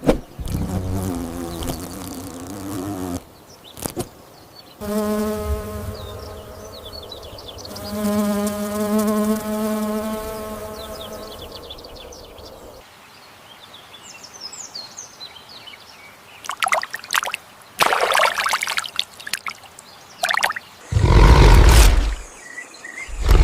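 A string of separate animal sound clips. The longest is a steady, even insect buzz held for a few seconds, heard twice in the middle. Louder noisy bursts come near the end.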